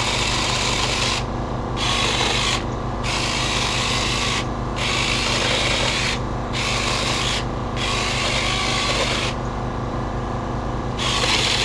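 Small cordless mini chainsaw cutting through brush and branches in a series of short cuts, about seven in all, each lasting about a second, with a harsh rasping chain noise. A steady low hum runs underneath.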